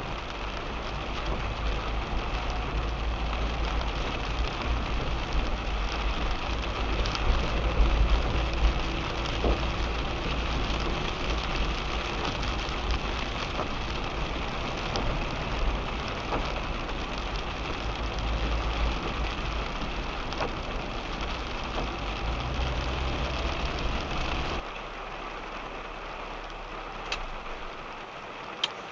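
Steady rain on a car's roof and windscreen heard from inside the car, over the low rumble of the moving car. About 25 seconds in, the rumble cuts off and the sound drops to quieter rain, with a few sharp drop ticks near the end.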